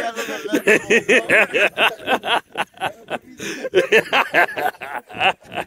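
Men laughing heartily in a long run of rapid, evenly repeated 'ha-ha' pulses, with a short break midway.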